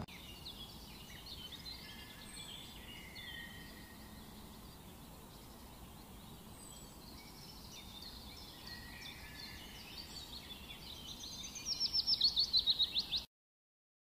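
Small songbirds chirping and singing with short high whistles and chirps. Near the end comes a loud, rapid trill of about a dozen repeated notes, then the sound cuts off suddenly.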